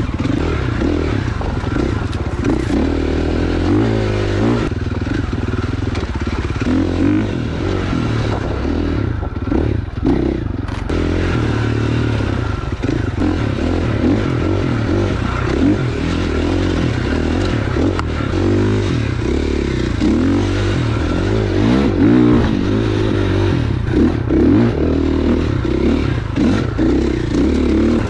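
Husqvarna FX 450 dirt bike's single-cylinder four-stroke engine running under load on a trail ride, its revs rising and falling again and again as the throttle is worked.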